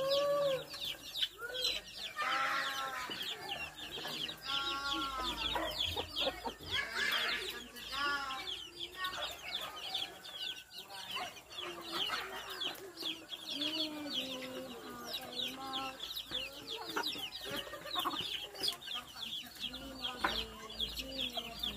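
A brood of young chicks peeping in a dense, continuous chorus. Louder, lower-pitched drawn-out calls break in every few seconds, mostly in the first half.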